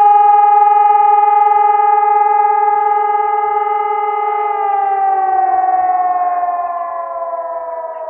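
Civil-defence sirens, E57 rotary sirens among them, sounding the monthly test alarm. They hold a steady tone, then from about halfway through wind down, falling in pitch and fading.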